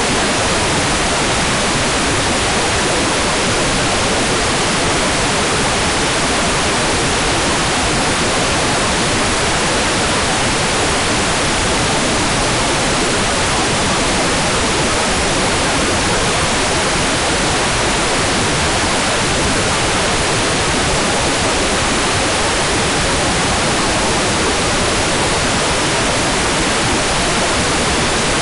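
Hair dryer running steadily: an even, unchanging rush of blowing-air noise with no clear pitch and no change in level.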